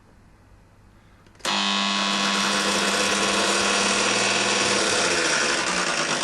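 Fujitsu window air conditioner switched on about a second and a half in: it starts suddenly and runs loudly with a steady electrical hum under a dense, harsh rattle. Its compressor has been damaged by blocked coils and has already shorted, and the owner thinks the fan is hitting something.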